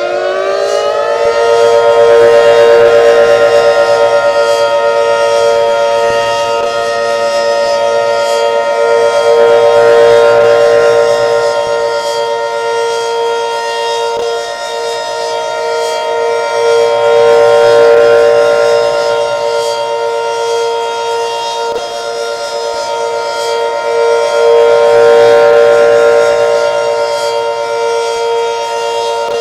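Federal Signal 500-series outdoor warning siren on test, finishing its wind-up to full pitch about a second in and then holding a steady wail. Its loudness rises and falls about every seven to eight seconds as the rotating siren head sweeps around.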